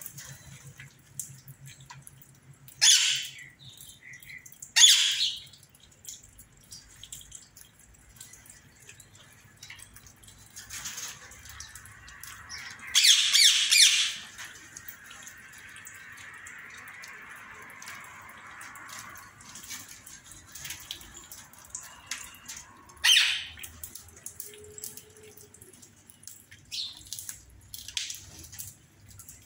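Indian ringneck parakeets squawking: loud calls about three and five seconds in, a longer one around thirteen seconds, and another around twenty-three seconds, with fainter chirps in between.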